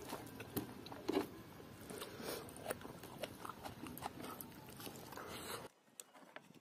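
Close-up chewing and wet mouth clicks from someone eating pork curry and rice, a run of small irregular crackles and smacks. The sound cuts off suddenly to near silence shortly before the end.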